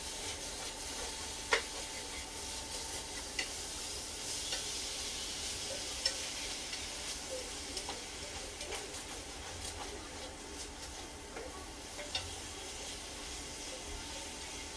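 Sliced zucchini sautéing in olive oil in a frying pan: a steady sizzle, with a few sharp clicks of a utensil stirring against the pan.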